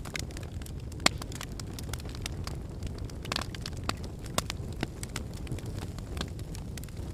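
Wood fire burning in a fireplace: a steady low rumble of flames with irregular sharp crackles and pops, the loudest pop about a second in.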